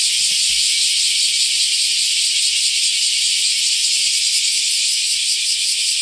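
Loud, steady chorus of cicadas: a dense, high-pitched buzzing with no break.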